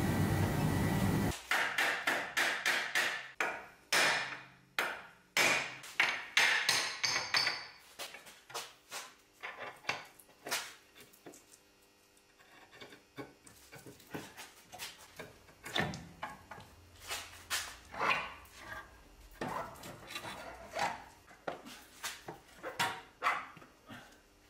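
Irregular sharp metal knocks and clanks of tools on a car's front suspension and steering parts, close together and loudest in the first several seconds, then fainter and sparser. A steady noise cuts off about a second in.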